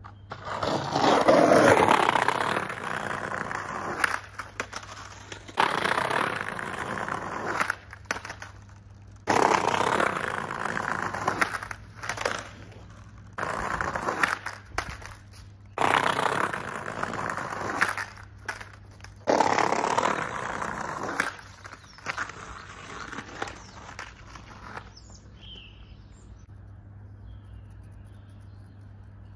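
Skateboard on new OJ urethane wheels rolling hard over paving in about seven runs of a couple of seconds each, some starting or ending with a sharp clack or scrape of the board, as frontside noseslides are tried on a concrete curb.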